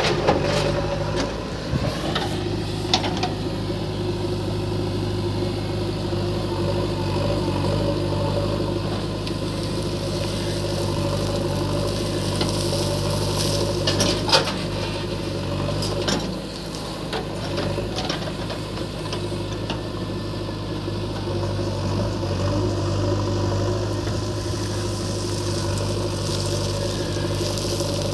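Diesel engine of a JCB backhoe loader running steadily under load while loading mud, with a few sharp knocks and clanks, the sharpest about 14 seconds in.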